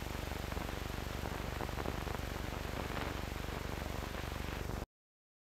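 Hiss and low hum with faint crackle from an old film soundtrack running on blank, with no narration or music; it cuts off suddenly near the end.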